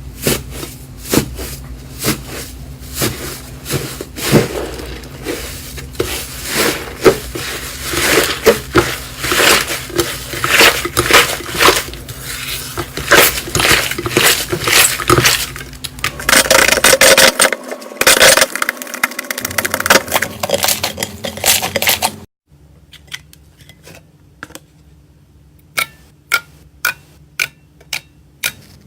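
Knife cutting through dried bar soap: a dense run of crisp crackles and clicks as the soap is sliced and crumbles. About 22 seconds in it cuts off abruptly to a quieter stretch of separate, evenly spaced clicks.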